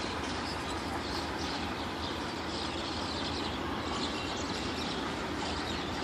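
Steady distant rumble of a train approaching behind twin Indian Railways WDM diesel locomotives, with no horn yet.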